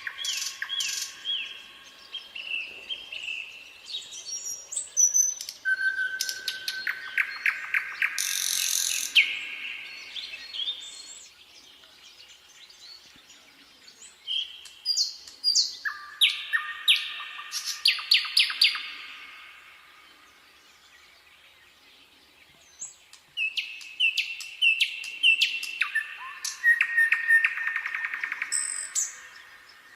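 Nightingale singing: phrases of rapid repeated notes, trills and whistles, in three bouts with pauses of a few seconds between them.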